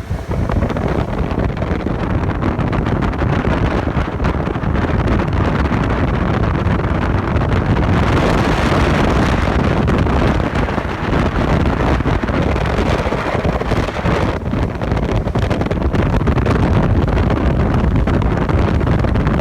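Speedboat with a Mercruiser 3.0 sterndrive running under way on the water, mixed with heavy wind buffeting on the microphone.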